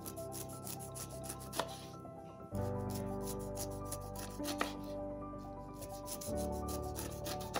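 Kitchen knife cutting through pineapple skin in many quick, short strokes, over background music whose sustained chords change twice.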